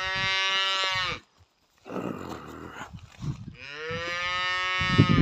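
Cattle mooing: two long, loud calls with a short breathy sound between them.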